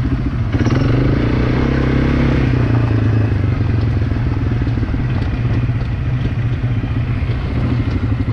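ATV engine running as it is ridden, with a fast steady pulse. Its revs rise and ease off again about a second in.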